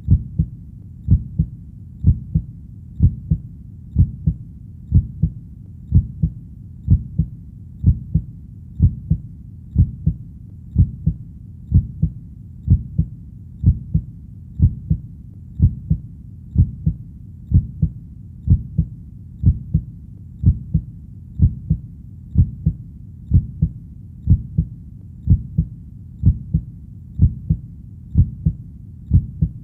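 Human heartbeat beating slowly and evenly, about one beat a second. Each beat is a low double thump, lub-dub.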